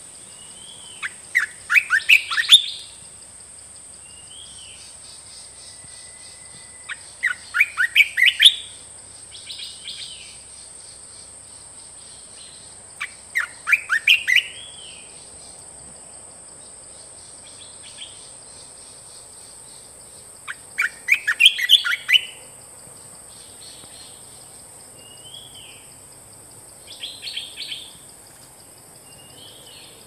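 Olive-winged bulbul singing: five loud phrases of rapid bubbling notes, each lasting one to two seconds and coming every five to seven seconds, with fainter short calls in between.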